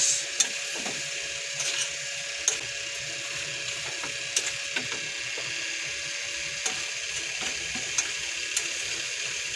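Shrimp sizzling in butter in a pan while a wooden spatula stirs them, with irregular sharp clicks and scrapes of the spatula against the pan and the shells.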